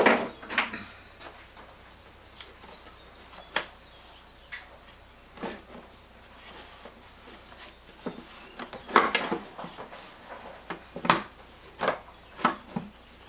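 Irregular clicks, knocks and rubbing as hands pull and wiggle the rubber air intake tube of a 2001 Mazda B4000 off its loosened hose clamps. The loudest cluster of knocks comes about nine seconds in.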